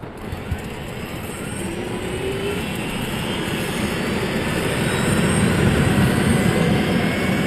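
Helicopter engine and rotor running, growing steadily louder, with a faint rising turbine whine.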